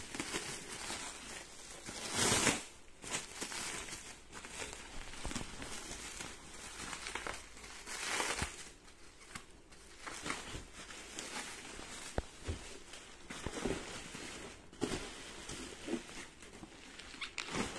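Bubble wrap and plastic film crinkling and rustling as they are pulled off and unwrapped by hand, in irregular bursts, loudest about two seconds in and again about eight seconds in.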